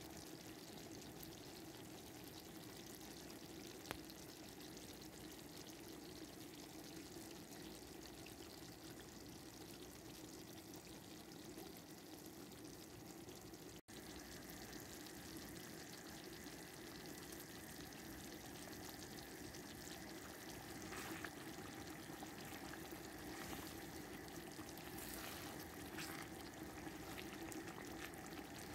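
Thick tomato-and-cream curry sauce simmering in a pan, a soft steady bubbling and sizzling with small pops. The sound drops out for an instant about halfway through.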